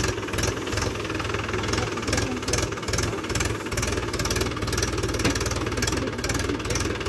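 Tractor engine running steadily with a fast, even chugging beat.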